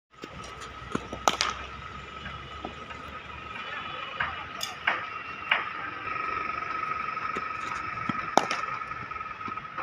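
Cricket ball and bat: a handful of sharp knocks as balls pitch on the concrete net strip and are played, the loudest about a second in and again near the end. A steady high tone runs underneath.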